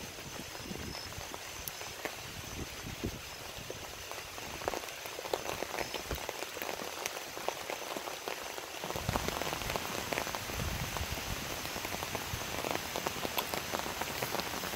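Steady rain falling, a continuous hiss dotted with many small drop impacts. It gets a little louder about nine seconds in.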